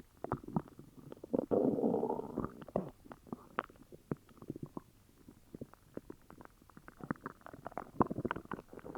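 An upset stomach growling and gurgling: a run of irregular short gurgles and pops, with a longer rumble about one and a half seconds in and another flurry of gurgles near the end.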